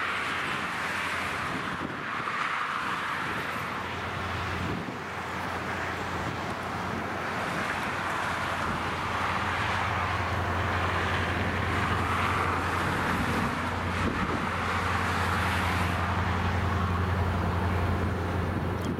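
EMD SD40-2 diesel locomotive's 16-cylinder 645 prime mover running as it moves slowly through the yard, a steady low drone that grows stronger about four seconds in, with a steady hiss above it.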